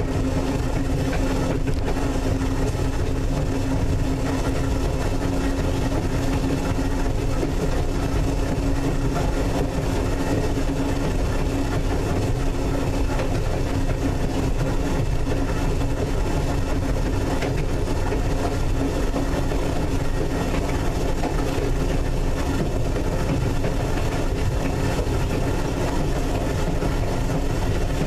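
North Shore Line 749 electric interurban car running along the track, heard from inside: a steady rumble of wheels on rail with a steady hum underneath.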